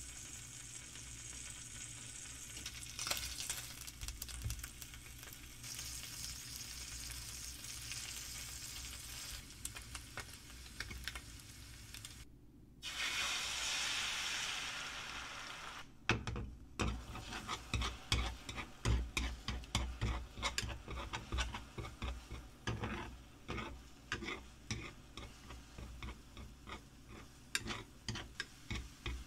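Slices of Spam sizzling in oil in a pan. About 13 seconds in, a green chive-and-egg mixture is poured in and the sizzle swells. From about 16 seconds on, wooden chopsticks stir and scramble it, tapping and clicking against the pan over the frying.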